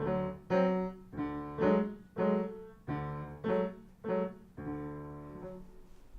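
Piano playing a slow phrase of about eight struck chords, the last one held for about a second before it dies away shortly before the end.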